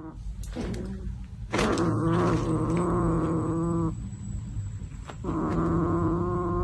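An animal giving two long, drawn-out cries of about two seconds each, the second starting about five seconds in, over a low steady hum.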